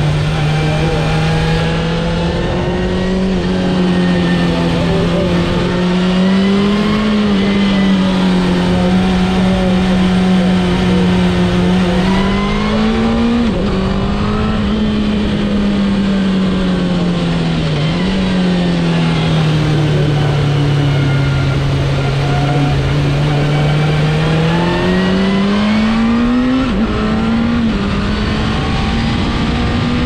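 2002 Suzuki GSX-R1000 K2's inline-four engine under way on the road. Its pitch climbs and falls with the throttle and breaks sharply a few times, about a third of the way in, at the middle and near the end, over a constant rush of wind.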